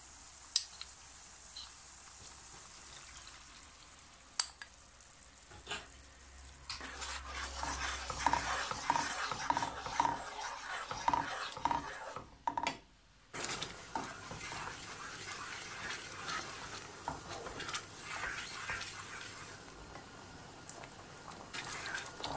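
A few sharp spoon-on-plate clinks as cornstarch slurry goes into hot caramel in a nonstick frying pan. About seven seconds in, the caramel sauce sizzles and bubbles while a wooden spatula stirs and scrapes around the pan in steady strokes. The sound drops out briefly near the middle.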